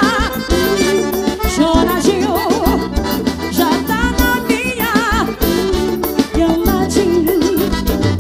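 Forró music: an accordion playing a wavering melody over bass and a steady drum beat.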